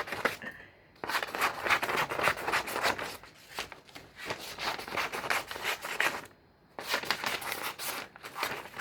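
Scissors cutting paper: quick, repeated snips and paper rustle, with two brief pauses, one about half a second in and one about six seconds in.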